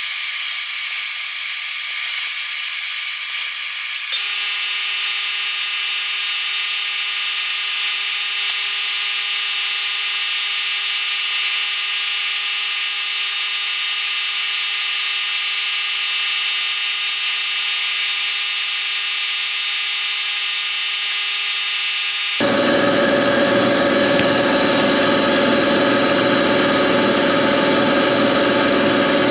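Sandblasting cabinet running: a loud, steady hiss of compressed air and abrasive from the blast gun, with several steady tones in it. About 22 seconds in the sound shifts to a fuller, deeper running noise.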